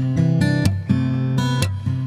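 Background music of strummed guitar chords.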